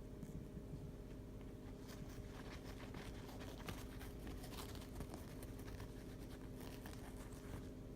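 A pet bird's beak picking at and tearing food, making faint, irregular small clicks and crackles over a low steady room hum.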